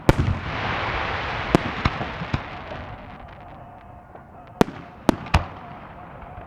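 Fireworks display: a sharp bang followed by a crackling shower that fades over two or three seconds, then more single bangs, three of them close together near the end.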